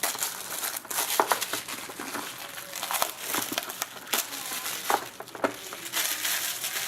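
Packaging crinkling and crackling in the hands as a sealed trading-card box is opened, with scattered light clicks and knocks.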